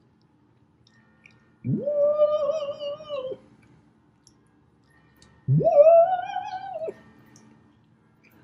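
A man's voice making two long wordless notes, high-pitched and held, the second sliding up from low before holding.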